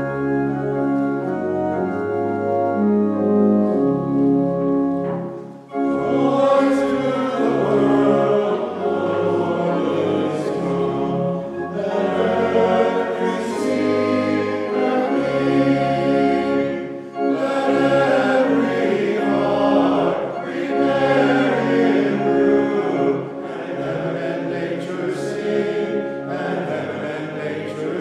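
Organ playing a hymn introduction in long held chords; about six seconds in, voices join and sing the hymn with the organ.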